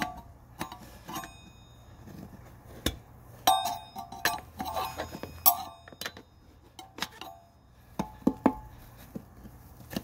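Steel tire spoon clinking and scraping against the metal rim as the tire bead is levered on over the inner tube. About a dozen sharp metallic clinks, each with a brief ring, come at irregular intervals; the loudest are a little past the middle.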